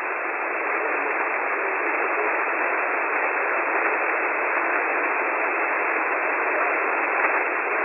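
Shortwave radio receiver hissing with band static between transmissions, a steady, thin, telephone-like rush of noise that swells slightly in the first second or two.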